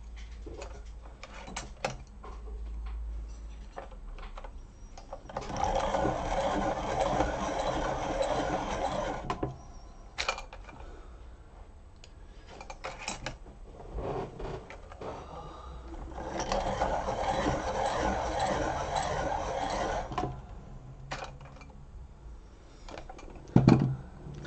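Electric pencil sharpener running twice, about four seconds each time, sharpening coloured pencils. Small clicks of pencils being handled come between, and a sharp knock sounds near the end.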